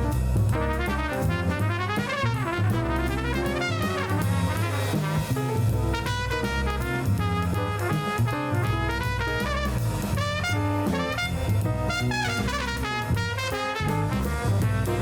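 Upbeat jazzy background music with brass and a drum kit, fast horn runs over a steady beat.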